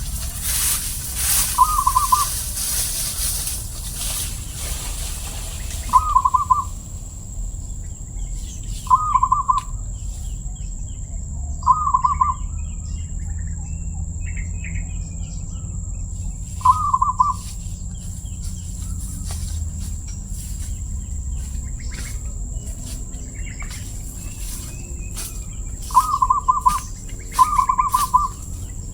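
Zebra dove (perkutut) cooing in short, rhythmic rolled phrases, about seven of them spaced a few seconds apart, with two in quick succession near the end. Under the cooing there is a steady high-pitched whine.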